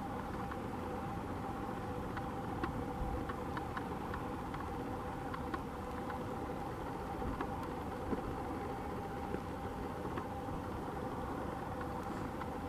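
Steady engine hum holding two constant tones, unchanged in level throughout, with a few faint clicks.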